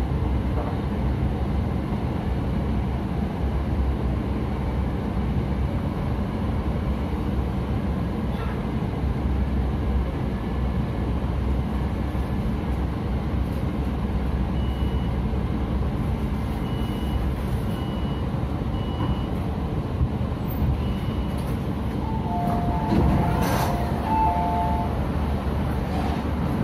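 MTR Tung Chung line train pulling into a station platform and coming to a stop, heard from inside the carriage as a steady low rumble. Short high beeps sound several times midway, and a two-tone electronic chime plays near the end.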